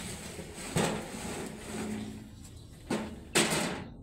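Metal wheelbarrow knocking as it is tipped out, emptying a load of green chillies, and set down: three sharp knocks, the last and loudest near the end.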